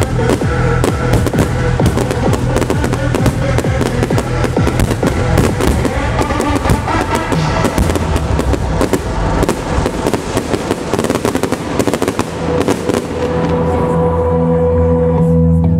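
Aerial fireworks bursting and crackling in rapid succession over loud trance music from the show's speakers. About two seconds before the end the bangs stop, leaving the music with a held note.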